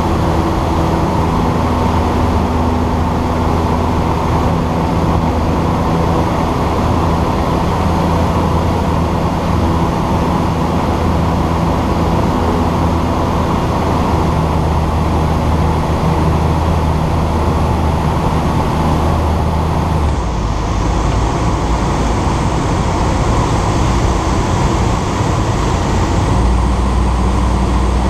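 Ikarus C42 microlight's engine and propeller droning steadily in flight, with wind rushing past. The engine note changes about twenty seconds in and again near the end.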